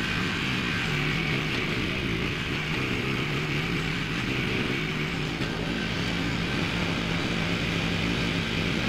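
Small petrol engine of a Groundhog HD99 towable hydraulic post hole auger running steadily at a constant speed.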